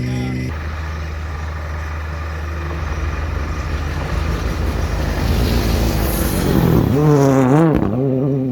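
Rally car at speed: a rumbling engine and road noise that builds, then, about seven seconds in, a clear engine note that dips in pitch and climbs again.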